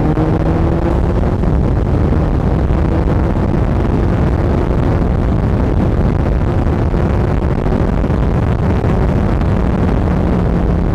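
Suzuki Hayabusa's inline-four with Race Fit aftermarket exhausts accelerating hard on the road up to about 140 km/h, the engine pitch rising near the start. Heavy wind rush on the microphone buries much of the engine note.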